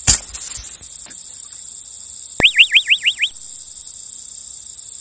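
Insects chirring steadily at a high pitch, with a sharp click just after the start. About two and a half seconds in comes an edited-in cartoon sound effect: six quick rising whistles in under a second.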